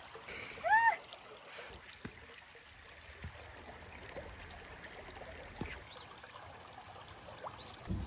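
Soft, steady running-water noise with a short pitched call that rises and falls about a second in, and a few faint high chirps later.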